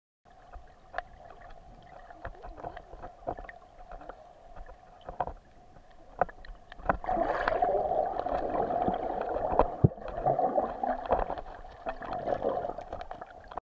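Muffled sound of water heard through an underwater camera: a steady hum with scattered sharp clicks and knocks, growing into a louder, fuller churning about seven seconds in as the camera is moved quickly through the water.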